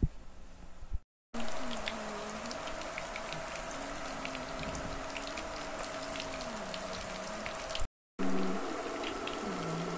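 Raw-banana pakoras deep-frying in hot oil in a kadhai: a steady sizzle with many small crackles and pops. The sound breaks off briefly twice, about a second in and just before the end.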